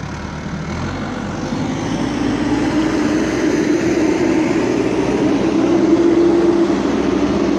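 Backhoe loader's engine running, growing steadily louder, a steady hum under a rushing noise.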